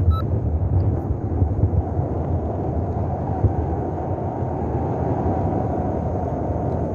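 Airflow rushing steadily over the microphone of a paraglider pilot in flight. A variometer gives one last short beep right at the start, then stays silent while the glider is not climbing.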